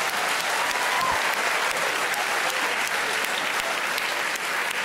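Studio audience applauding steadily in response to a punchline.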